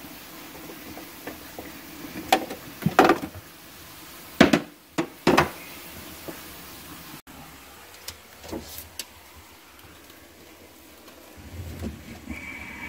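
Sharp knocks and clanks of hand tools and metal parts being handled: a cluster of them in the first half, then sparser. A thin whine starts near the end.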